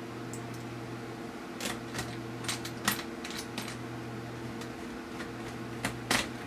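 Scattered light clicks and taps of small screws and a screwdriver being handled as screws are driven back into a laptop's plastic screen bezel, over a steady low hum. The clicks bunch up in the middle and come again near the end.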